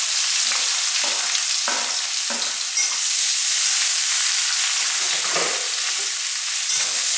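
Chopped onion sizzling steadily in hot oil with cumin, garlic, ginger and green chili, while it is stirred in the pan, with a few short scrapes.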